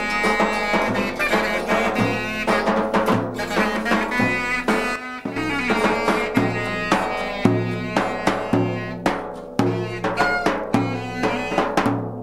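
Live folk music at a party: an acoustic guitar is played together with a large drum beaten with a wooden stick, and the drum strokes are strong and regular.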